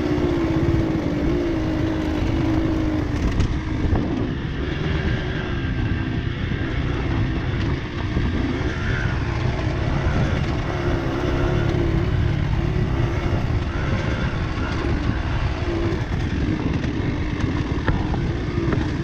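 Dirt bike engine running, its pitch rising and falling with the throttle over a steady low rumble.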